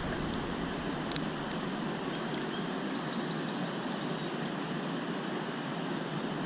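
Steady rushing of flowing creek water, with a single click about a second in.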